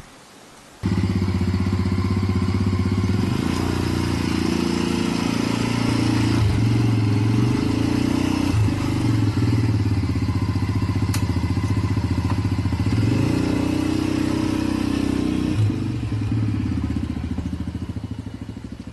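Motor tricycle's engine running steadily. It cuts in suddenly about a second in and fades out near the end.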